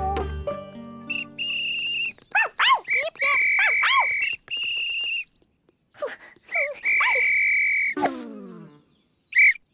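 Toy whistle blown in several long, steady, shrill toots, with bursts of short yelping cries bending up and down in pitch between them. Just after eight seconds comes a falling tone, and one short toot follows near the end.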